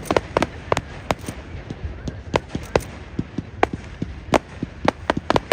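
Fireworks going off: a rapid, irregular series of sharp bangs and crackles, some loud and close, others fainter.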